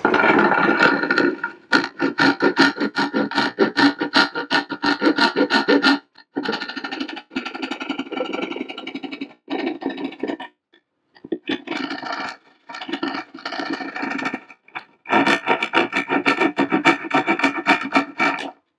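Narrow-bladed hand jab saw cutting through a thin wall panel, joining drilled holes into one opening: quick back-and-forth strokes in several bouts with short pauses, stopping just before the end.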